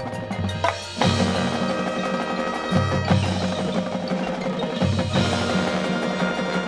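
High school marching band playing its field show: held chords with mallet percussion and bells, punctuated by loud accented ensemble hits about a second in and again roughly every two seconds.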